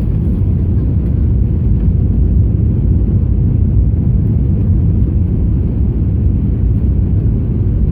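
Steady low rumble inside an Airbus A321's passenger cabin during landing: engine and airflow noise heard through the cabin, with no distinct thumps or changes.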